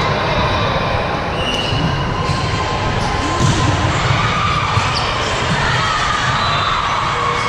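Gym crowd noise at a youth volleyball match: spectators and players shouting and cheering over one another, echoing in the hall, with short high squeaks like sneakers on the court floor.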